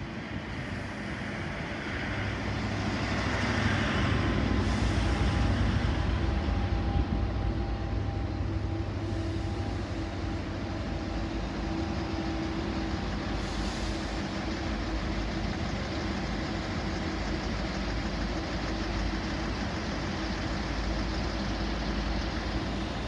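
Israel Railways passenger train pulling into a station, a low rumble that grows loudest a few seconds in as the front of the train passes. The carriages then roll by steadily as the train arrives.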